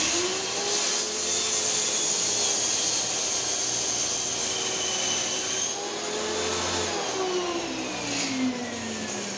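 Table saw motor switched on and running with a steady whine while a small board is crosscut on a plywood sled; near the end the motor's pitch falls as it winds down.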